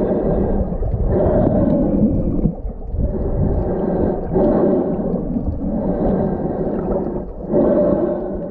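Muffled underwater sound picked up by a submerged camera, coming in long surges a few seconds apart with brief dips between them.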